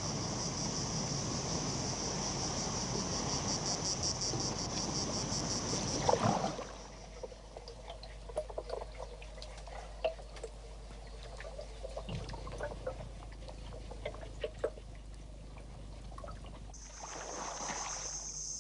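Tropical forest ambience: a rapidly pulsing, high insect chorus over a steady noise, then, after about six seconds, quieter trickling water with scattered small drips and clicks. The high insect chorus returns near the end.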